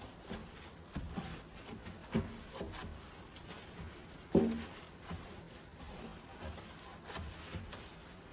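Kitchen items being handled and set down: a string of light knocks and clicks with some rubbing, the loudest a thud with a short ringing tone about four and a half seconds in.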